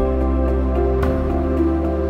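Calm background music of held, sustained notes, with a change of chord about a second in.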